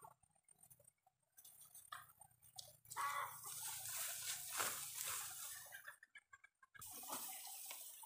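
Dry ripe rice stalks rustling and crackling as they are gathered and cut by hand. The rustling is loudest from about three to six seconds in, with a short pitched call near its start.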